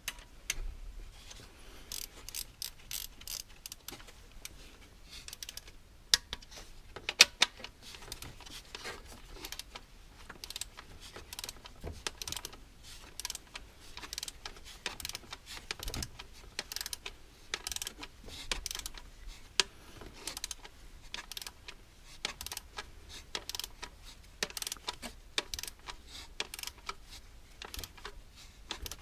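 Hand tools being worked on the engine: runs of rapid clicking, with a few sharper knocks about six to seven seconds in.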